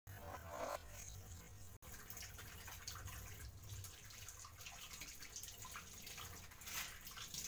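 Faint dish washing at a kitchen sink: water splashing and dripping as dishes are rinsed, with light clinks of plates handled and set in a plastic drying rack.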